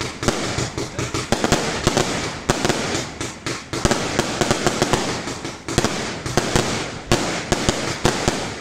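Aerial fireworks going off in quick succession: a dense, continuous run of sharp cracks and pops, thinning out near the end.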